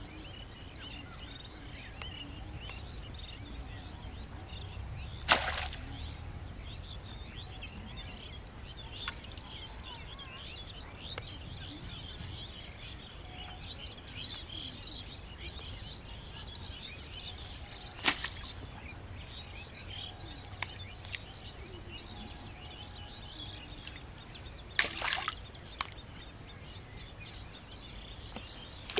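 Outdoor ambience of many small birds chirping over a steady high insect buzz. A few sharp, short sounds stand out: about five seconds in, about eighteen seconds in, and a short cluster around twenty-five seconds in.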